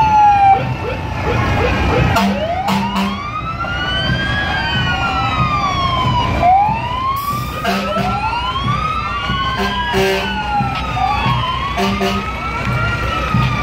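Several emergency-vehicle sirens wailing together, their pitch sweeping up and down every couple of seconds and overlapping, with a few sharp knocks among them.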